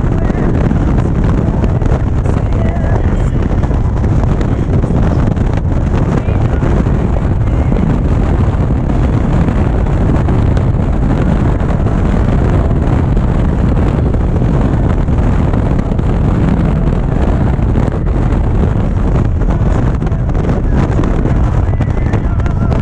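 Steady wind rush buffeting the microphone, over the low drone of an Indian Chieftain's V-twin cruising at highway speed.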